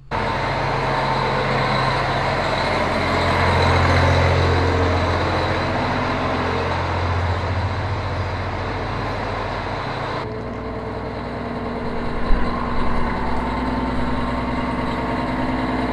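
Case IH Quadtrac track tractor's diesel engine running steadily, a little louder around four seconds in. About ten seconds in the sound turns duller as the higher part drops away, and a few knocks come near the end.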